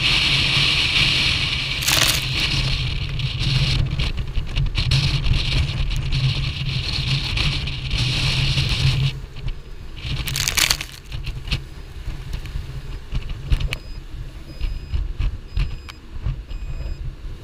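Gale-force wind buffeting the microphone and water rushing along a sailboat's hull in gusts over 35 knots. About nine seconds in the noise drops, and in the second half the chartplotter's wind alarm beeps faintly about once a second, a sign that the wind is above its 35-knot setting.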